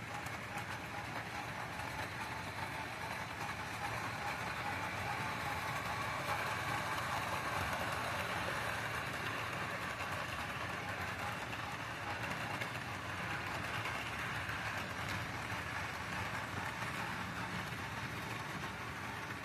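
HO scale model trains running on the layout: a steady whir of small locomotive motors and wheels rolling on the track, growing a little louder a few seconds in as a train passes close.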